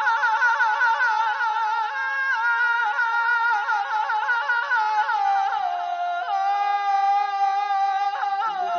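Persian classical avaz (Isfahan school) sung by a male voice in tahrir style: a high line warbles in quick regular trills, about four or five a second, then descends and settles on held notes. Lower notes join in near the end.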